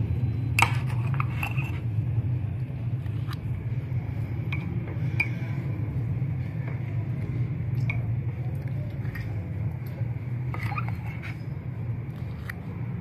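Metal spoon scooping thick whipped coffee between ceramic mugs, with scattered light clinks and scrapes against the mug rims over a steady low hum. The sharpest clink comes about half a second in, and a quick cluster comes near the end.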